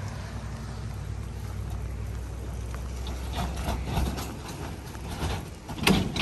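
A shovel knocking and scraping as debris is cleared out of a boat hull, in scattered strokes from about halfway through and a loud knock near the end, over a steady low rumble.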